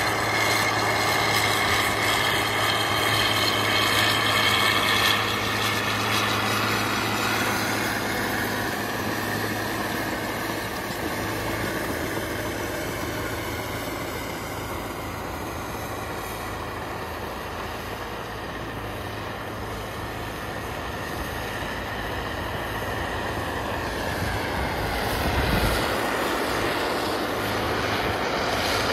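FiatAllis FA 200 crawler tractor's diesel engine running steadily under load as it pulls a disc harrow through stubble soil. The drone fades somewhat in the middle and grows louder again near the end.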